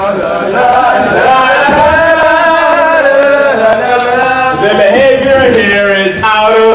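A man singing a comic song into a microphone, with long held notes that slide in pitch.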